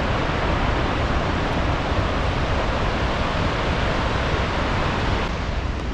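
Steady rushing of a large flow of water pouring over a dam spillway wall. It eases slightly near the end.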